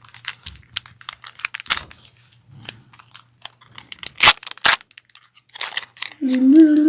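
Magic: The Gathering collector booster pack's foil wrapper being torn open along its tear notch and crinkled in the hands, a run of small crackles with two sharp snaps about four seconds in.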